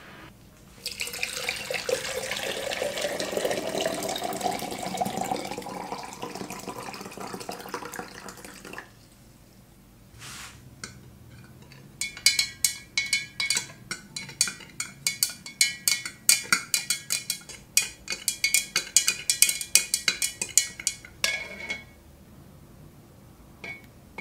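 Liquid poured from a plastic bottle into a tall drinking glass, its pitch rising as the glass fills. Then a thin rod stirs the solution, clinking rapidly against the glass with a ringing tone, mixing the powder into a rust-removal bath.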